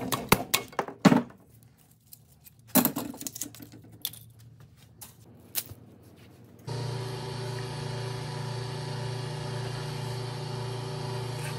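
Sharp metal knocks and clicks from pliers and a hammer working copper windings out of an electric motor's stator, in two short flurries. After about six and a half seconds the sound switches suddenly to the steady hum of the wire-stripping machine's electric gear motor running.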